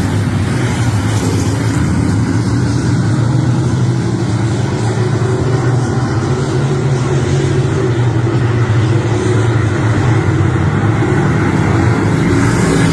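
A vehicle engine running steadily at a constant speed, a low even drone throughout.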